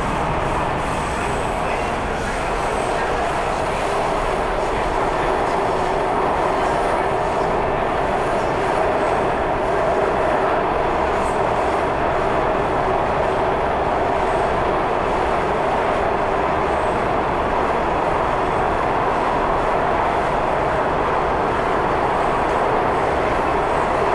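Steady running noise inside a moving Washington Metro railcar: wheels on the rails and the car's motors making an even, unbroken rumble.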